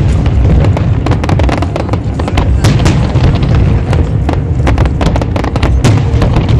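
Fireworks display: aerial shells and low-level effects bursting in quick succession, many sharp bangs and crackles overlapping over a constant low rumble.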